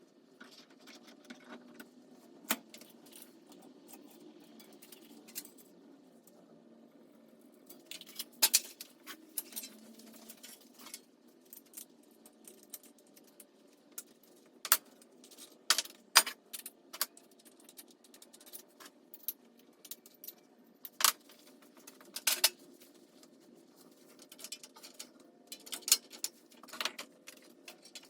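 Light metal clinks and taps at irregular intervals, a few sharper than the rest, over a faint steady low noise: steel round bar and tools being handled.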